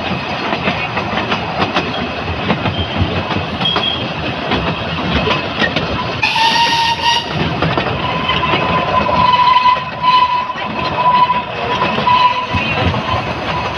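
Narrow-gauge passenger train running, its wheels clattering over the rail joints. About six seconds in comes one short warning blast with several tones. After it, a steady high-pitched squeal wavers on until near the end.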